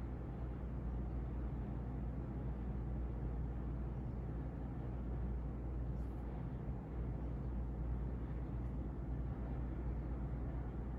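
36-inch CEC Georgian ceiling fan (model 303D) running steadily: a low motor hum under the even rush of air from its four blades.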